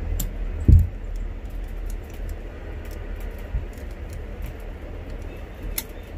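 Hand iron pressing a cotton kameez neckline on a work table, sliding and being pushed down on the cloth with faint ticks, and a dull thump about two-thirds of a second in. A steady low hum lies underneath.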